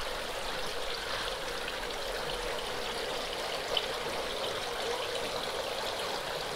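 Water splashing steadily from the inlet spray bars into a circular fish-rearing tank, its flow turned down. There is one short click about four seconds in.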